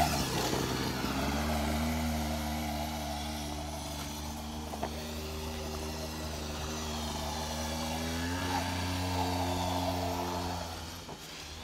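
Small dirt bike engine running at a steady speed. Its pitch rises a little just over a second in and again near the end, then it fades away.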